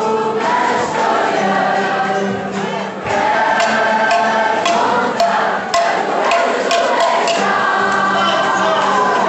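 A large crowd of young people singing a song together in chorus, with a few sharp hits in the middle.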